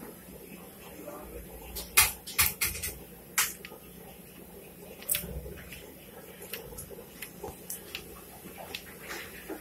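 Hot oil sizzling in a large iron wok as jilebi batter is piped into it and fries. A cluster of sharp clicks comes about two to three and a half seconds in, and another about five seconds in.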